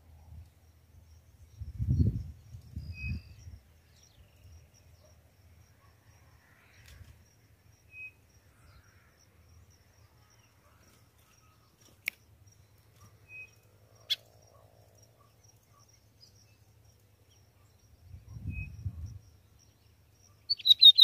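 Quiet open-country ambience: low rumbling noise about two seconds in and again near the end, a few faint short bird chirps, and two sharp clicks in the middle. Right at the end, a caged lined seedeater (bigodinho) starts a loud, rapid, high song.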